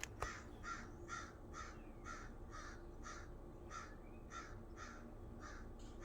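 A bird calling over and over at a steady pace, about two calls a second.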